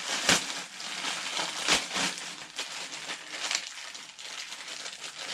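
Clear plastic packaging bag crinkling and rustling as hands rummage through it, with two sharper crackles, about a third of a second and nearly two seconds in.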